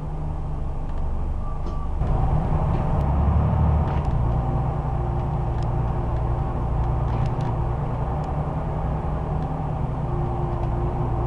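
Scania OmniCity bus's diesel engine heard from inside the passenger saloon, running with a steady low drone. The drone grows louder about two seconds in, then holds, with a few faint clicks and rattles over it.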